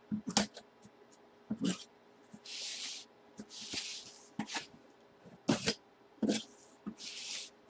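Box cutter slitting the packing tape on a cardboard shipping box: three short scraping swipes, with about five sharp knocks from the box and cutter being handled.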